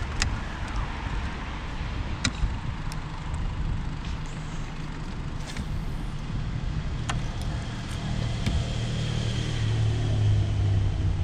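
A motor engine runs with a low rumble that grows louder near the end, with a few sharp clicks scattered through it.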